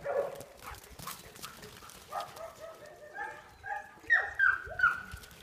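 Dogs yipping and barking in play, a series of short calls building to three loud, sharp yelps that fall in pitch in quick succession near the end.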